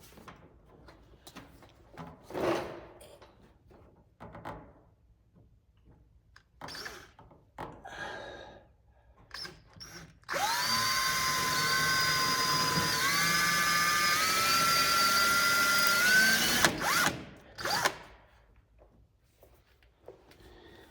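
Power drill drilling a screw hole through the steel fender lip: a steady whine for about six seconds that steps up slightly in pitch before stopping, then two short bursts. Before the drilling, scattered knocks and clicks of handling.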